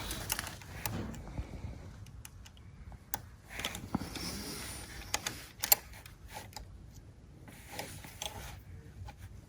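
Faint, scattered small clicks and rustling as the brake-switch wiring connectors on an electric ATV's handlebar are handled and plugged back together, with one sharper click just past the middle.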